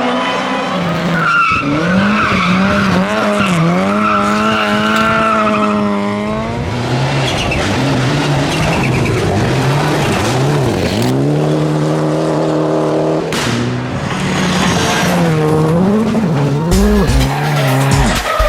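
Race car engine sounds revving up and down, with tyre squeal, most likely dubbed over the toy cars racing.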